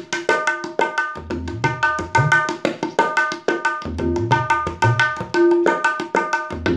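Tabla played solo in a fast kherwa pattern: quick, even strokes on the dayan ringing at one steady pitch, with bayan bass strokes whose pitch bends upward. The cycle repeats about every two and three-quarter seconds.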